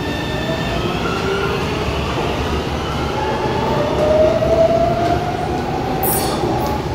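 Metro trains at a station platform: electric traction motors whine with falling tones at first, then a louder whine rises in pitch from about three seconds in as a train powers up, over steady rail rumble. A burst of hissing comes near the end.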